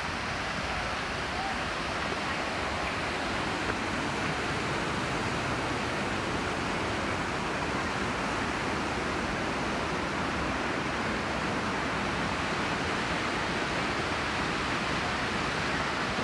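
Steady rush of a rocky mountain river pouring over boulders and small waterfalls.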